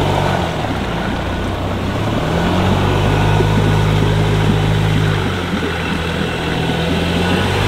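Ford Ranger pickup's engine running under load as the truck wades through river water up to its number plate; the engine note rises about two seconds in and drops back about five seconds in, over a steady wash of water noise.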